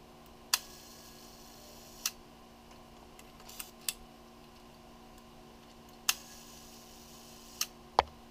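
Polaroid 180 camera's shutter being worked by hand: sharp mechanical clicks, two pairs about a second and a half apart, with smaller clicks between them and a louder knock near the end.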